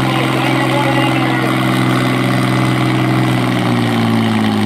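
International Harvester farm tractor's engine running hard while pulling a weight-transfer sled on a dirt track. It runs steadily, then its pitch sinks slowly near the end as the tractor bogs down under the sled's load.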